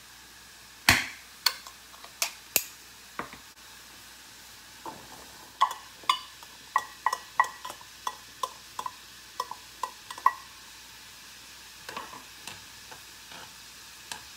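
Ring-pull lid of a tin can of boiled soybeans snapping open with one sharp crack about a second in, then a few clicks as the lid is peeled back. A spatula then knocks and scrapes the beans out of the metal can into a pot: quick ringing metallic taps, about three a second, with a few lighter taps of stirring near the end.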